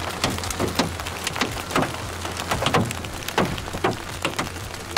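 Hailstorm: a steady hiss of falling hail and rain with many sharp, irregular knocks of hailstones striking.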